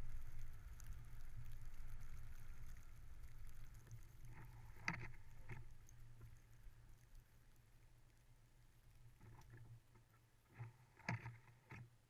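Faint low rumble of a Toyota 4Runner creeping over snow, fading away as it pulls up and slows, with a few sharp knocks about five seconds in and a cluster of them near the end.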